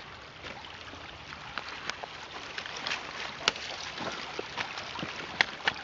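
Footsteps over dry fallen leaves and stones at a shallow rocky brook's edge: scattered crunches and clicks, with a sharp knock about three and a half seconds in, over a steady background hiss.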